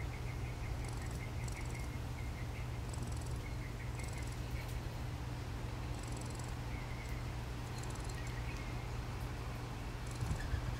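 Eastern gray squirrel making soft, rapid rattling calls, like lightly shaken maracas, in short runs with pauses between, over a steady low hum.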